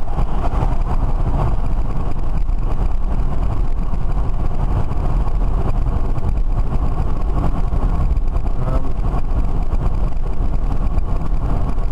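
Steady road and wind rumble inside the cabin of a BMW converted to electric drive, cruising at motorway speed around 70 mph.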